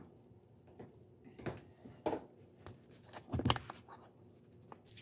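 Light kitchen clatter: a few scattered knocks and clinks of a spoon and cookware around a saucepan of grits on a gas stove, the loudest about three and a half seconds in.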